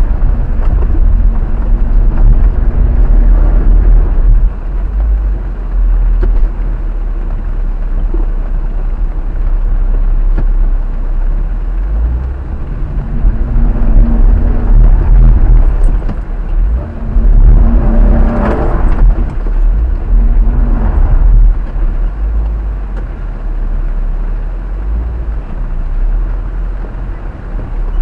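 Jeep Wrangler Unlimited driving on a rough dirt trail, heard inside the cab: a steady deep rumble of engine, drivetrain and tyres, swelling briefly a few times.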